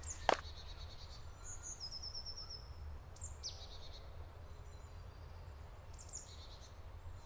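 Woodland birds calling: scattered short high chirps, a quick trill of repeated notes about two seconds in and a falling call a little after, over a steady low rumble. A single sharp knock sounds just after the start.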